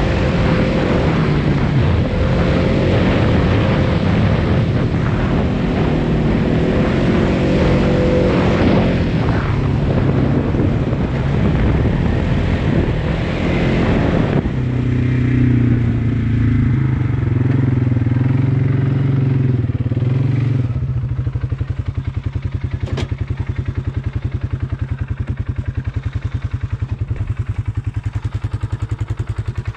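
Polaris Sportsman 570 ATV's single-cylinder engine running under load over a rough field track, with a rush of wind and tyre noise. About halfway through the rush falls away to a steadier low engine note. In the last third it drops to a slow, even chug, with one sharp click in between.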